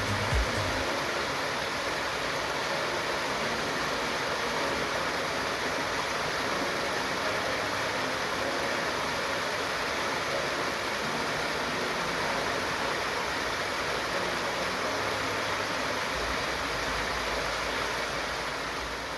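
Steady rush of flowing stream water, an even hiss with no single pitch.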